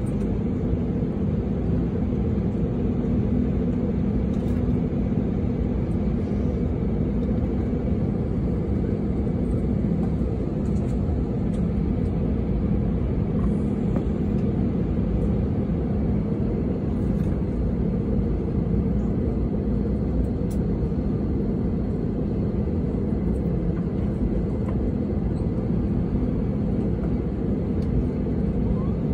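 Airbus A320 cabin noise while taxiing: a steady low rumble from the jet engines at taxi power, with a faint steady high whine over it, heard from inside the cabin.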